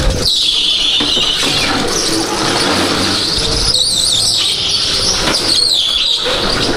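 Go-kart tyres squealing as they slide through corners on a smooth indoor track floor. The high squeal dips and rises in pitch in long stretches.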